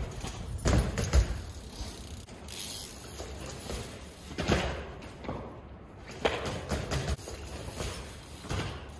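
BMX bike's tyres knocking and bouncing on concrete steps as the rider hops the bike, about half a dozen separate thuds at irregular spacing, the loudest in the first second and a half.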